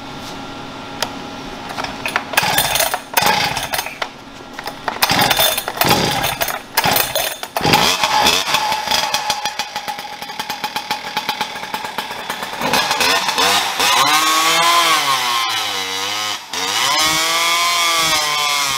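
Farmertec G395XP 94cc two-stroke chainsaw engine with a bolt-on tuned expansion-chamber exhaust pipe, running on a chainsaw dyno. It runs low at first, is revved unevenly in short bursts, holds a steady high speed, and in the last few seconds its pitch rises and falls repeatedly as it is revved.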